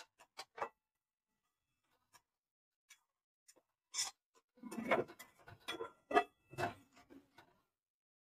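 Spatula scraping and tapping against a kadai while stirring spice powders into an onion-tomato masala. A few light ticks at the start, then a stretch of scraping and knocking from about four seconds in.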